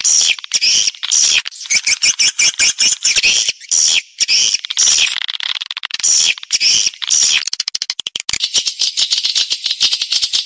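Swiftlet calls from a lure recording used to draw swiftlets into a nesting house: a dense, high-pitched chorus of rapid clicking twitters and short downward-sliding chirps.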